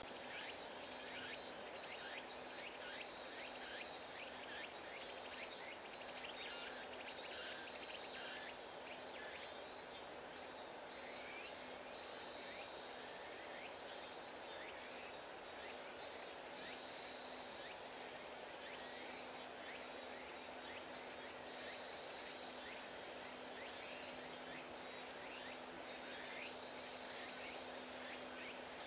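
Faint outdoor ambience: insects chirping in short pulsed trills that repeat every couple of seconds, over a steady low hum and a soft background haze.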